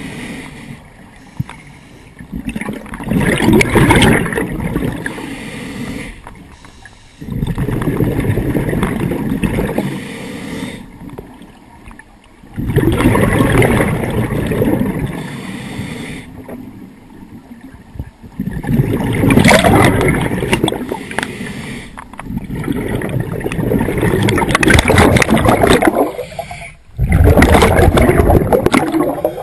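Scuba diver breathing through a regulator underwater: six gurgling rushes of exhaled bubbles a few seconds apart, with quieter stretches between breaths.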